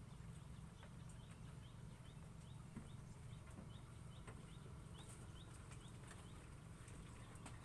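Near silence with a low steady rumble, over which a bird gives a faint run of short rising chirps, about three a second.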